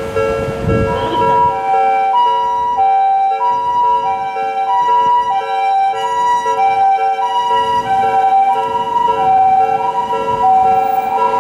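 Japanese ambulance two-tone hi-lo siren, switching between a higher and a lower note about every two-thirds of a second, starting about a second and a half in. Under it a railway level-crossing warning bell rings steadily.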